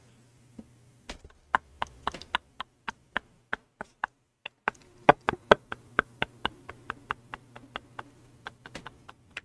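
Silent, breathless laughter: a long irregular run of short sharp clicks, about three or four a second, over a faint steady hum.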